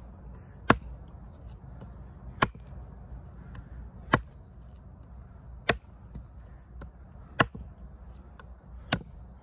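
Holtzman's Gorilla Survival Bushwhacker, a fixed-blade bushcraft knife with a 5.6-inch D2 steel blade, chopping into a wooden branch: six sharp strikes, about one every second and a half.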